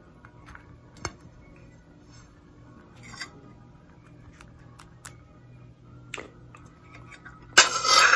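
A metal fork clinking faintly now and then against a plate during a meal, a few separate light clicks over a low steady hum. Near the end a brief loud rush of noise cuts in.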